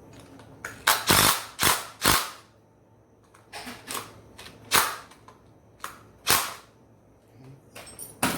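Impact drill run in short bursts, about eight trigger pulls, hammering the flywheel bolt tight on a 49cc engine.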